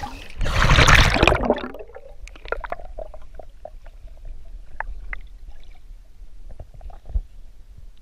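Water splashing as the camera plunges into a shallow pool about half a second in, then muffled underwater bubbling and gurgling with scattered small clicks and pops.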